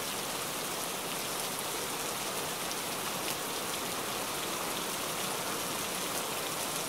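Steady rain falling, with scattered drops ticking.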